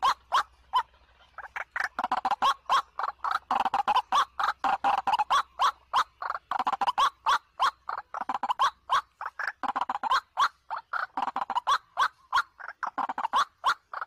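White-breasted waterhen (ruak-ruak) calling: a fast, unbroken run of short, harsh repeated notes, several a second.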